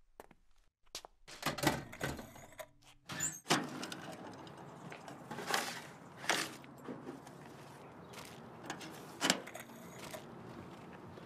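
A metal mailbox being opened and a newspaper pulled out: several sharp clicks and knocks with paper handling, over a steady low hiss that sets in about three and a half seconds in.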